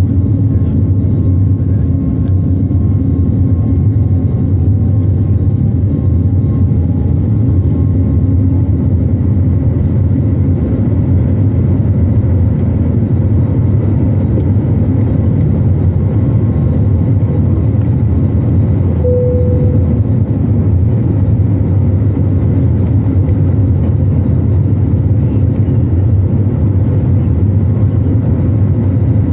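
Airbus A321 jet engines at takeoff thrust heard from inside the cabin: a loud, steady roar with a deep rumble through the takeoff and initial climb, with a short faint tone about two-thirds through.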